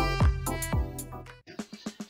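Electronic intro jingle music: a beat of deep drum hits under sustained pitched notes, dying away about a second and a half in.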